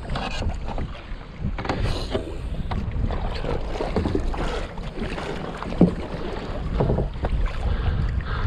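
Wind buffeting the microphone over water splashing and slapping against a playboat kayak's hull as it is paddled through choppy waves, with one sharper slap about two-thirds of the way through.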